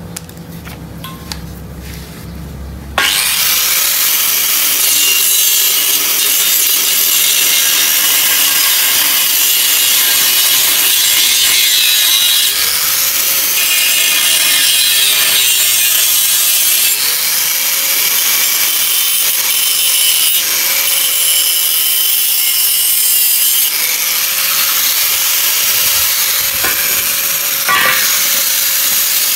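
Handheld angle grinder cutting into a rusty square steel tube: the disc on metal starts about three seconds in and runs on as a loud, continuous hiss, with the motor's pitch wavering under load.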